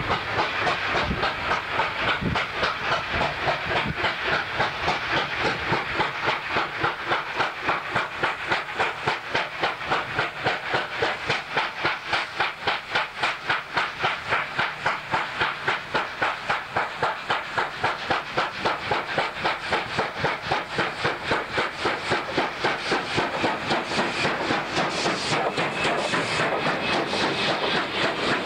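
NSWGR C38-class locomotive 3801, a two-cylinder 4-6-2 Pacific, working hard with a fast, even steam exhaust beat as it approaches and passes. Near the end, hiss and the rattle of the passing carriages join the beat.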